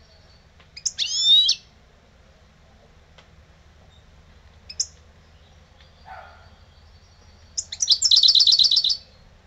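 European goldfinch singing in short bursts: a quick twittering phrase about a second in, a single sharp note near the middle, and a fast rattling trill of about ten repeated notes near the end.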